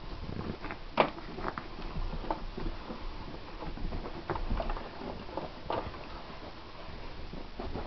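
A wheaten terrier scuffling, her claws and paws making irregular pattering clicks and knocks, the sharpest about a second in.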